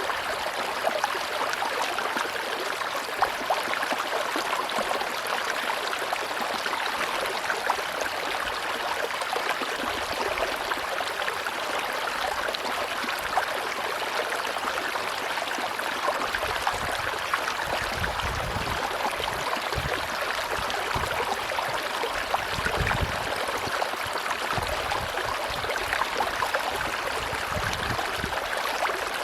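River water rushing and babbling over rocks, a steady dense splashing full of small droplet ticks. A low rumble comes and goes in the second half.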